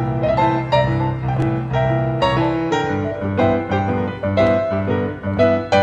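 Solo piano playing lively boogie-woogie, quick struck notes and chords over a bass line that shifts about halfway through.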